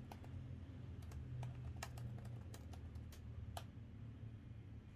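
Typing on an HP Omen 15 laptop keyboard: irregular key clicks that stop after about three and a half seconds, over a low steady hum.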